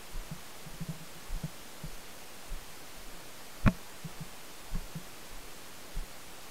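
Irregular muffled thumps from a paintball player's footsteps and body movement through brush, picked up by the body-worn camera's mic over a steady hiss. A single sharper, louder knock comes a little past halfway.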